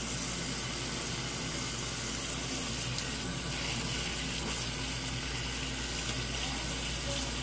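Bathroom tap running steadily into the sink basin while slime is rinsed out of a strand of hair under the water.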